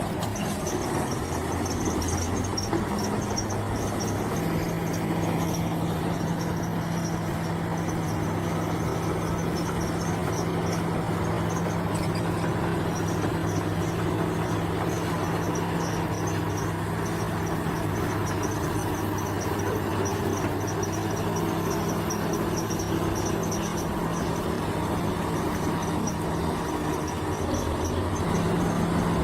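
Bulldozer's diesel engine running steadily, its note stepping up slightly about four seconds in. High chirping of insects goes on alongside.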